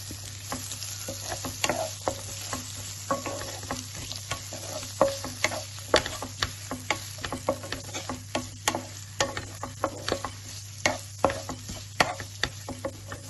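Chopped onions sizzling in hot olive oil in a pan while being stirred, the utensil clicking and scraping against the pan about twice a second.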